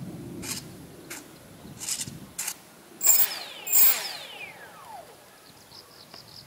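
Brushless 2205-2300kv RC motor with a 5-inch three-blade propeller, given two quick throttle blips about three seconds in. Each blip is a short loud whine whose pitch falls away as the prop spins down. Before that come a few brief buzzes from the 9 g servos moving the control surfaces during the pre-flight control check.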